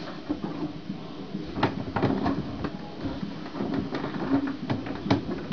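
Inflated latex balloons being handled and bumped, a scatter of sharp taps and knocks.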